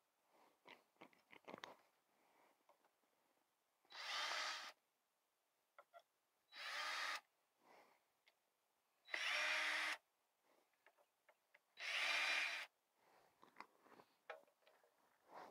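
Cordless drill running in four short bursts, each under a second, backing out the screws that hold the wooden lid on a swarm-trap hive box. Small clicks and handling noises come between the bursts.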